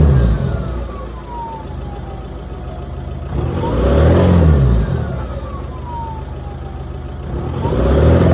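VW 2.0 TDI (BKD) diesel engine being blipped: the revs rise and fall about every four seconds, and after each blip a whistle falls in pitch as the turbo winds down. The uploader takes it for a bad turbo.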